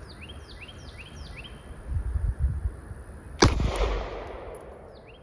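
A single pistol shot from a Springfield Hellcat 9mm about three and a half seconds in, with a short echo after it. A bird repeats a short chirp several times in the background.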